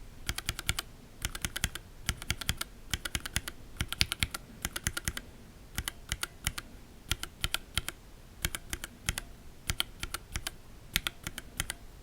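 Gateron Linjar linear mechanical keyboard switches pressed in quick bursts of several presses, clacking as they bottom out and spring back. One switch has a TX switch film fitted and the other is stock; the difference in sound is very subtle.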